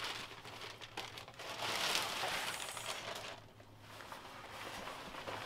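Crinkling and rustling of a new foul-weather jacket and its packaging as it is unpacked and handled, with a fuller stretch of rustling about two seconds in.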